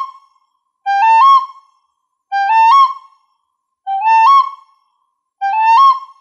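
Recorder playing a short rising three-note phrase, G, A, high C, slurred in a single breath. The phrase is repeated four times, about every second and a half, with short silences between.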